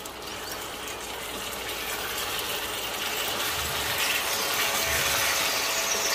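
Chili sambal sauce sizzling and bubbling in a wok while a silicone spatula stirs and turns pieces of fried red snapper, growing louder over the seconds, with a few low thuds in the second half.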